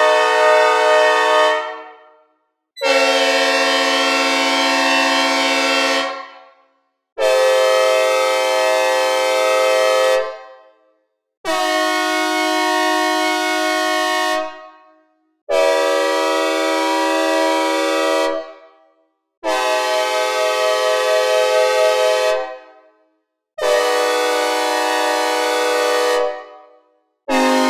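Synthesizer recreations of Nathan Airchime-style American locomotive air horns, played one model after another. A horn held from before fades out, then six more sustained multi-note chords sound, each held about three and a half seconds before fading, with a short gap between them, and another begins at the very end. Each blast has its own chord and pitch.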